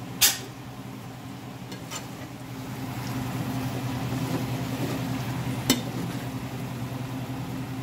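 Sauced salmon and vegetables sizzling in a skillet as a metal slotted spoon stirs them, the spoon clinking against the pan just after the start and again near the end, over a steady low hum.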